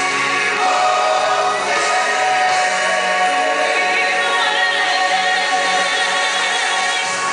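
Stage-show music with a choir of voices singing, holding long notes over the accompaniment.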